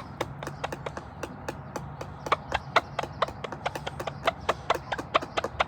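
A rapid, uneven series of sharp taps, about four to six a second, louder in the second half.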